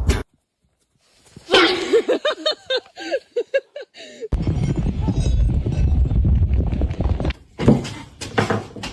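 A horse whinnying: one long neigh that starts high and then quavers rapidly up and down for about three seconds. It is followed by a steady low rumble and a couple of sharp knocks near the end.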